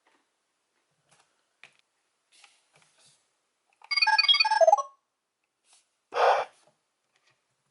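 Electronic sound effects from a Power Rangers Beast Morphers roleplay toy activated by a Morph-X Key: a few faint plastic clicks, then about four seconds in a short jingle of stepping electronic beeps from the toy's speaker, and a brief noisy sound-effect burst about two seconds later.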